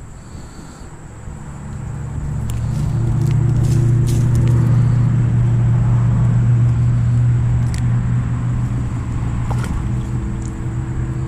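An engine droning steadily. It grows louder over the first few seconds, holds, then slowly eases off.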